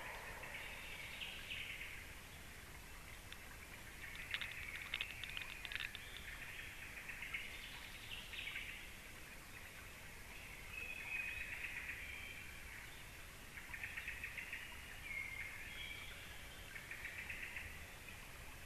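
Faint birdsong: short trilled phrases repeated every few seconds.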